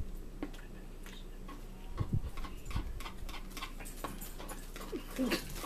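Irregular soft clicks and smacks, a few a second, with a dog's short whine near the end.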